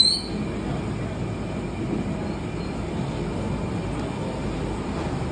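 Steady low rumbling background noise of a busy street-side food stall. A brief high chirp, rising in pitch, sounds right at the start and is the loudest moment.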